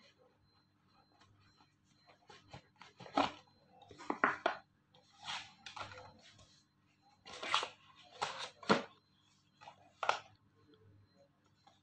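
Cardboard smartphone box being handled and opened, its lid sliding off: a series of short rustling, scraping bursts of cardboard and paper.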